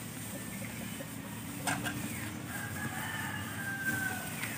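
A rooster crowing once, a long pitched call starting about two and a half seconds in, over steady low background noise. A sharp click comes about a second and a half in.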